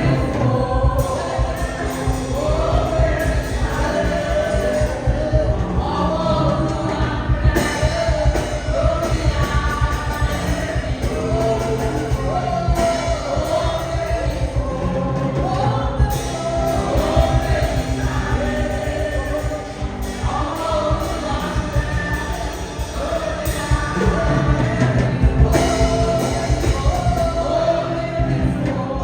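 Gospel worship music: singers over a band with a driving beat and a heavy bass.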